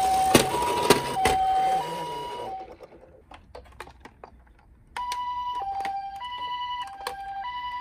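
Toy ambulance's electronic hi-lo siren, two tones alternating steadily, under a noisy rattle with sharp plastic clicks. The siren cuts out about two and a half seconds in, leaving a few scattered clicks, then a two-tone siren starts again about five seconds in.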